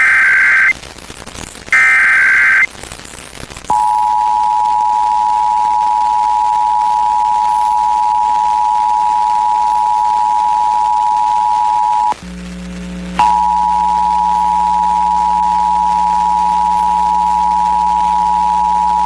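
The last two bursts of an Emergency Alert System SAME header, harsh digital data warbles under a second each, then the EAS two-tone attention signal (853 and 960 Hz) sounding steadily. About twelve seconds in, the tone cuts out for a second and comes back with a low hum beneath it.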